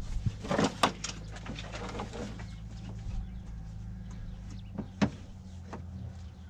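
Scattered clicks, knocks and rustling from hands reaching for and handling a brake cable, the sharpest knock about five seconds in, over a steady low hum.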